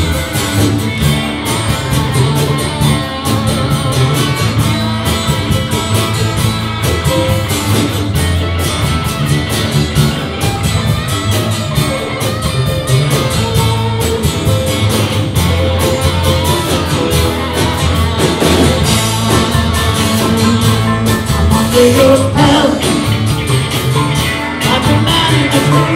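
Live rock band playing a rock-and-roll song with a steady beat, led by electric and acoustic guitars over bass.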